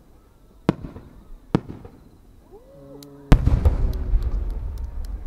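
Aerial firework shells bursting. Two sharp bangs come in the first two seconds, then a much louder, deep boom a little past halfway, with a long low rumble after it, as a large chrysanthemum shell opens.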